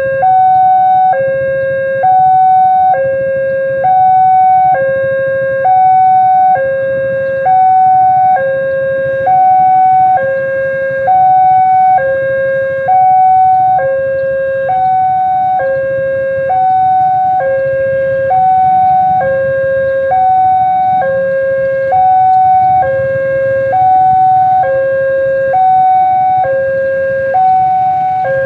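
Railway level-crossing alarm sounding its electronic two-tone warning, switching between a low and a high note about once a second, which means a train is approaching and the barriers are closed. A low rumble of waiting road vehicles runs underneath.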